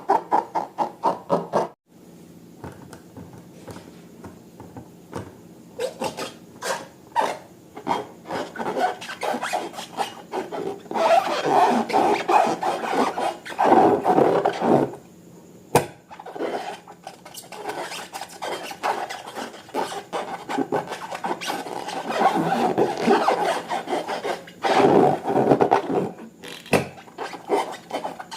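Hands squishing, rubbing and stretching slime and rubber balloons. Many quick sticky clicks and crackles come in uneven bursts with rubbing sounds between them.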